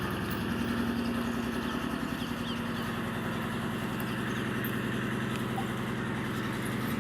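An engine running steadily at idle, an even sound with a fast regular pulse that holds the same speed and level throughout.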